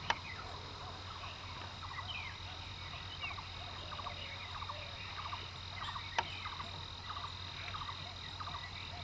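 Forest ambience of many short, repeated bird chirps and calls over a continuous high insect drone, with two sharp clicks, one just after the start and one about six seconds in.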